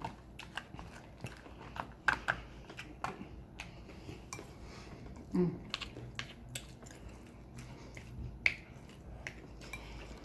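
Eating sounds from a mouthful of pepper steak and rice: irregular wet mouth clicks and chewing, with a short hum about five seconds in.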